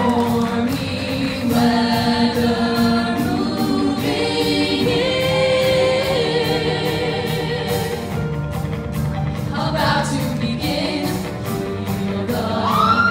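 A female vocal ensemble sings live into microphones, holding sustained chords in close harmony over a steady beat.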